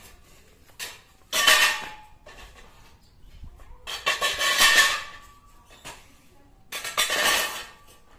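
Steel tent-frame pipes and fittings clanking and rattling against each other as they are handled, in three bursts of metallic clatter about a second long, with a ringing metal tone.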